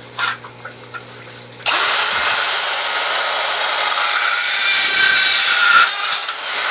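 DeWalt rotary tool with an all-purpose bit switching on abruptly about a second and a half in and running at high speed with a steady high whine, cutting through the plastic arm of a PVC sprinkler. A few faint handling clicks come before it starts.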